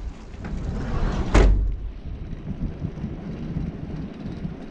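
A single loud thump or slam about a second and a half in, over a low, rumbling background of handling noise.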